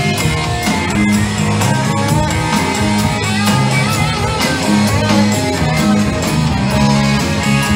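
Live rock band playing an instrumental passage: electric guitars over bass and a steady drum beat.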